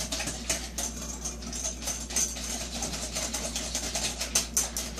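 Wire whisk beating a custard mixture of egg yolk, sugar, cornflour and milk in a bowl: rapid, irregular clicking of the tines against the bowl, several strokes a second, busier near the end.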